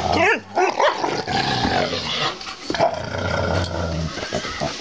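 An Irish Setter and a Chocolate Labrador play-fighting, growling and snarling at each other, with a few short rising yelps in the first second.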